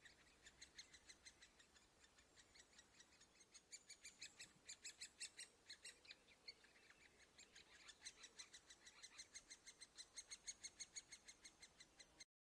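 Great spotted woodpecker nestlings begging from the nest hole: a continuous chatter of short, high calls repeated several times a second, which stops abruptly near the end.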